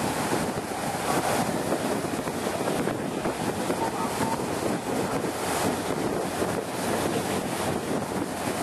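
Wind buffeting the microphone on an open boat deck at sea: a steady rushing noise over the wash of the water.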